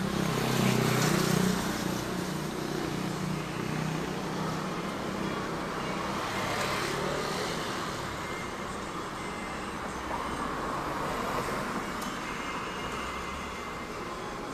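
City street traffic: a motor vehicle's engine passes close in the first two seconds, then cars and a motorcycle run by on the road with a steady traffic hum, swelling again around seven and eleven seconds.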